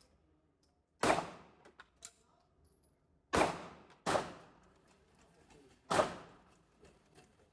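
Four gunshots at an uneven pace: one about a second in, two close together around three to four seconds, and one near six seconds, each with a short echoing tail. Two light clicks follow the first shot.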